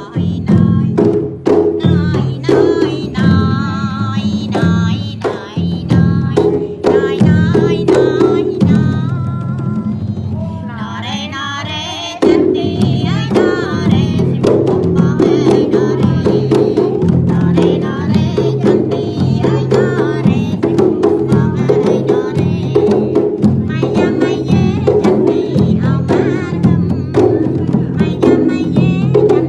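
Khmer Yike folk-theatre song: a woman singing over large laced frame drums (skor yike) beaten in a steady rhythm. About twelve seconds in the drumming comes in louder and denser and carries on under the singing.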